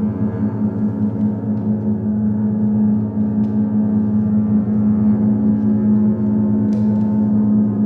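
Layered bowed double basses holding a dense, steady low drone of several sustained pitches, its loudness gently wavering as the tones beat against one another.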